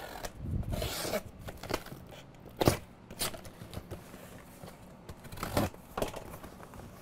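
A cardboard shipping box being opened: the packing tape is cut along its seams, with rough scraping of tape and cardboard. A few sharp knocks come as the box is handled and turned, the loudest about a third of the way in and again near the end.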